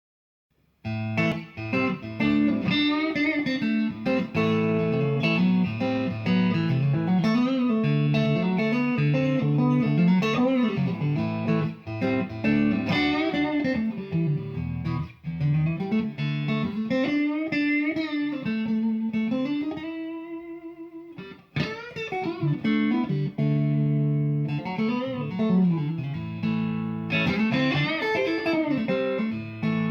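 Electric guitar, a Fender American Standard Stratocaster, played through a Victory V40 valve amplifier head: a lead line with string bends and held notes. It starts about a second in, and a held note dies away about two-thirds through before the playing picks up again.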